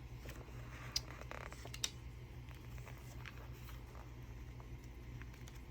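Faint handling of paper journal pages: two small sharp clicks about a second apart and a brief soft rustle between them, over a low steady hum.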